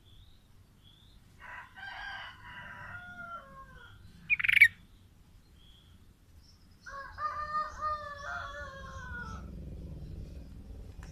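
A rooster crowing twice, one crow trailing down in pitch and a later one held longer, with a single short, loud bird chirp between them.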